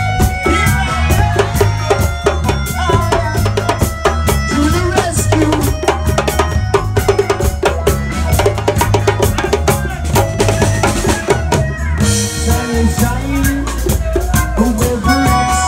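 Live reggae band playing, the drum kit and bass guitar to the fore, with held melody notes over them.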